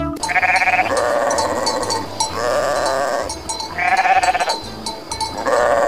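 Sheep bleating: four long, wavering bleats, each about a second long, with short gaps between them.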